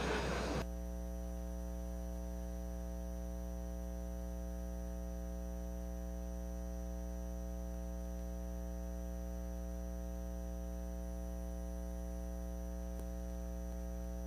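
Steady electrical mains hum on an open microphone line: a low buzz with many evenly spaced, unchanging overtones. A faint click comes near the end.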